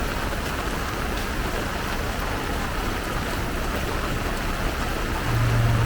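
Heavy rain pouring steadily. A low steady hum comes in near the end.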